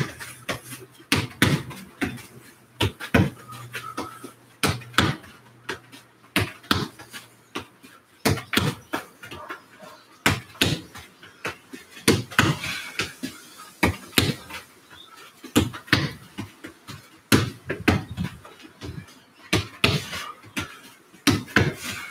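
A football kicked again and again against a rebound wall and trapped with the right foot, giving a steady run of sharp thuds, a few each second.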